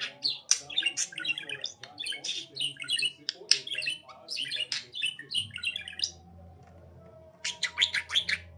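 Budgerigar chattering and squawking in fast, high chirps. It breaks off about six seconds in, then gives a short burst near the end.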